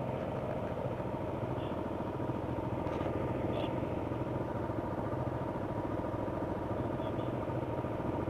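Motorcycle engine running steadily at low speed near idle, with no revving.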